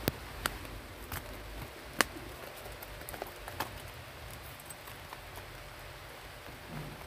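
Low rumble with a few scattered sharp ticks and taps, the loudest about two seconds in.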